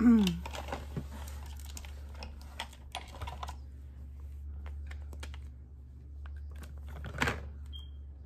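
Small plastic clicks and taps of makeup items being handled and sorted, irregular and scattered, with a louder rustle about seven seconds in. A steady low hum runs underneath.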